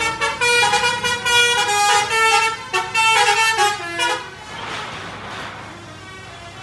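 Bus 'telolet' melody horn (basuri type) playing a run of changing notes for about four seconds, followed by a short hiss around five seconds in.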